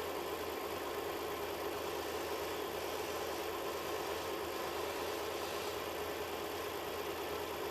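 Petrol engine idling steadily, with no ticking: the spark plug wire has just been pressed firmly onto its plug, stopping the high-voltage leak that had made a tick like valve noise.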